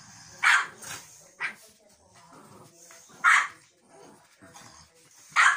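French bulldog barking while pestering another dog in play: three sharp single barks a couple of seconds apart, with a softer one about a second and a half in.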